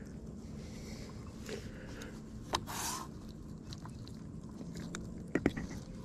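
Fishing pliers clicking and scraping as a hook is worked out of a small fish's mouth: a click and a brief scrape about halfway through, then a few sharp clicks near the end, over a steady low hum.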